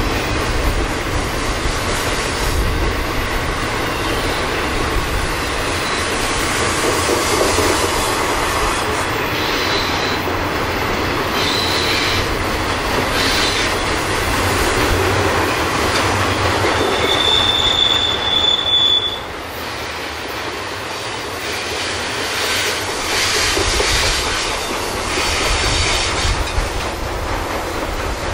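A train rolling past, steel wheels on rail, with a short high-pitched wheel squeal about two-thirds of the way through.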